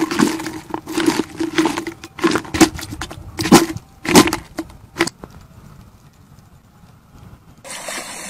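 Sharp knocks and splashes in a plastic bucket of live small fish and prawns, each with a short hollow ring from the bucket, a handful of louder ones between about two and five seconds in. Near the end, a rush of splashing water starts.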